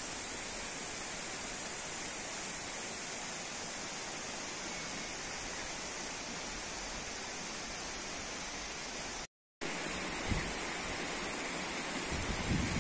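Steady outdoor hiss of field ambience with no distinct events. It cuts out for a moment about nine seconds in; after that, wind bumps on the microphone a few times toward the end.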